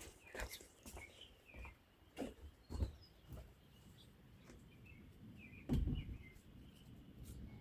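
Birds chirping faintly outdoors, mixed with scattered sharp taps and knocks, the loudest about three-quarters of the way through.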